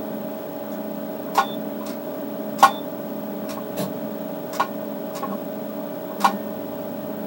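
Steady hum from an ND:YAG laser unit's water-cooling system, with about six sharp clicks at irregular intervals of a second or so.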